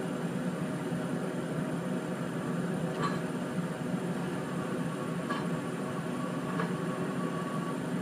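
Distant tracked feller buncher's diesel engine running steadily, with three faint knocks about three, five and six and a half seconds in.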